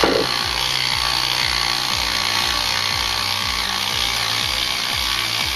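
Cordless 12V ratchet wrench running steadily in reverse, its motor and gearbox turning a 3/8-inch threaded carriage bolt back out of a pre-drilled wooden board, the threads rubbing against the wood.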